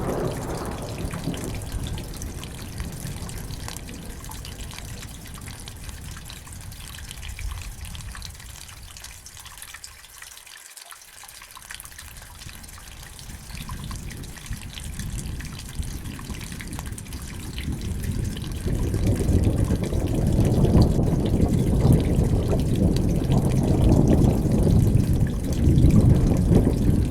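Steady rain with trickling and dripping water. A low rumble of thunder dies away at the start, and another long rumble builds from about two-thirds of the way through and keeps going.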